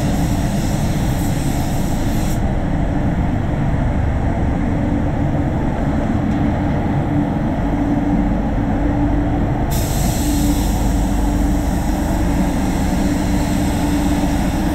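Steady rush of compressed air from a gravity-feed spray gun spraying car paint, over the low rumble of the spray booth's airflow. The higher part of the hiss turns duller from about two seconds in until about ten seconds in.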